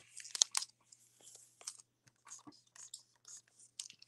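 Irregular light clicks and crackles, the sharpest about half a second in.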